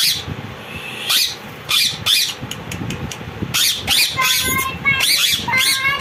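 Indian ringneck parakeets screeching: a few sharp, high calls in the first two seconds, then a quick run of calls from a little past halfway.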